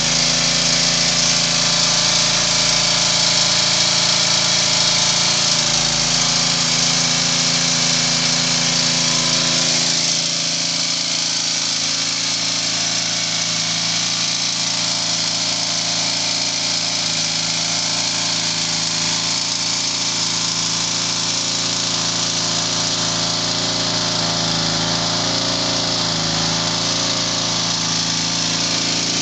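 A 3.5 hp lawnmower engine driving a permanent-magnet alternator, running at a steady speed; it becomes a little quieter about ten seconds in.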